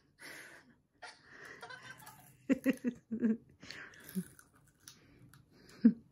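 A girl giggling in short bursts, several in the middle and one near the end, while nibbling and chewing a piece of vegetable, with soft breathy sounds between.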